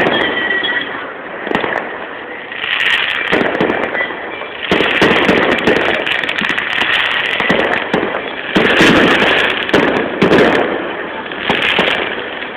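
Firecrackers going off in a rapid, irregular string of sharp bangs, with steady crackling between the louder blasts.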